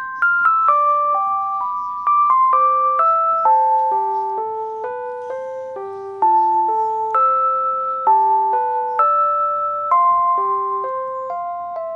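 Background music: a light keyboard melody of clear single notes, with a fresh phrase struck about every two seconds and fading away between.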